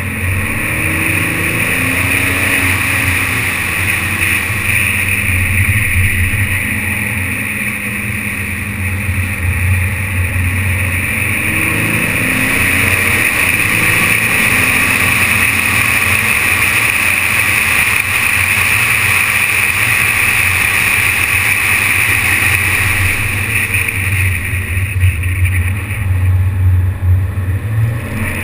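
A BMW 530d driving steadily along a road: its straight-six diesel engine together with tyre and wind noise make a continuous low rumble, heard muffled through a GoPro's sealed waterproof housing.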